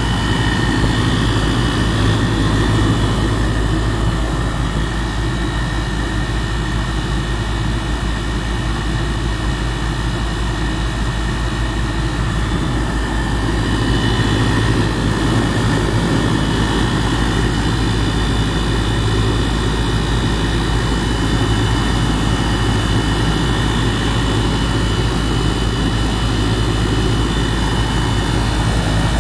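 2018 Goodman 2.5-ton gas pack running in cooling mode, heard from right beside its compressor: a steady, loud compressor hum with the condenser fan's rushing air and a few constant whining tones.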